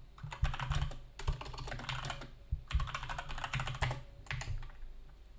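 Typing on a computer keyboard: several quick runs of keystrokes that thin out near the end.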